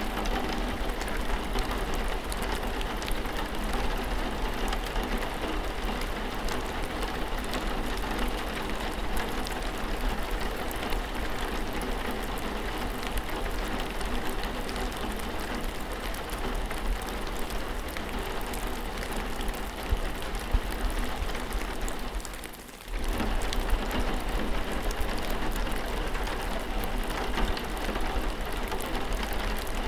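Steady rainfall, a dense hiss dotted with the ticks of individual drops. About two-thirds of the way through it briefly drops away for under a second, then comes back at once.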